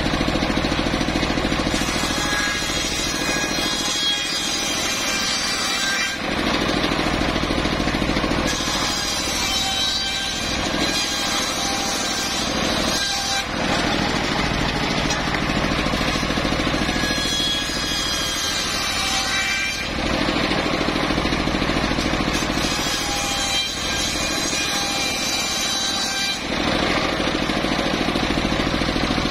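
Large circular saw bench ripping wooden planks: the big blade whines as it cuts, in four passes of a few seconds each, over the steady running of the engine that drives it.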